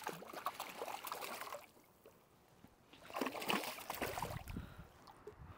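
Water splashing and sloshing in two bursts, the second starting about three seconds in.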